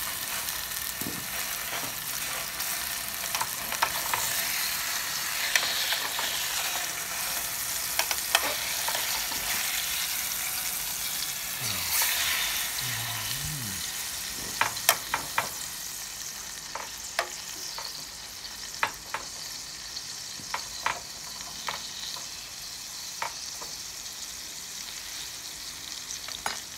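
Thin T-bone steak sizzling in melted butter in an aluminium camping mess tin over a portable gas stove, with a fork scraping and clicking against the pan now and then. The sizzle eases a little about two-thirds of the way through.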